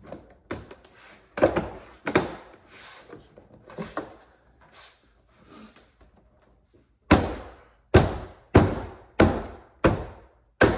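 Ford Focus ST interior door trim panel thumped into place by hand, its plastic clips seating: two thumps near the start, then six in a row about every 0.7 s in the second half.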